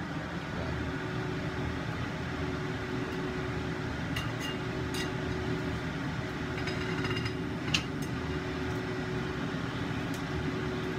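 Large kitchen scissors snipping through a cooked chicken thigh a few times, each cut a short sharp click, the loudest about three-quarters of the way through. Under the cuts runs a steady background hiss.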